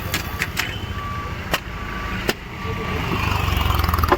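Maruti Suzuki Wagon R three-cylinder engine idling unevenly on CNG with a pulsing rumble, misfiring from a faulty CNG injector, growing louder about three seconds in. A few sharp clicks come at irregular intervals over it, from the air filter housing being worked loose.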